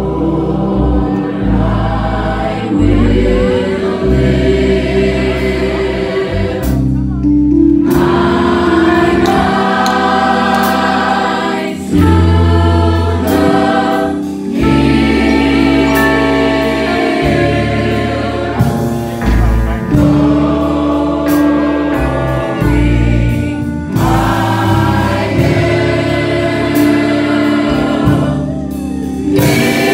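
Youth gospel choir singing in parts, in phrases with short breaths between them, accompanied by an electric keyboard holding low bass notes under the voices.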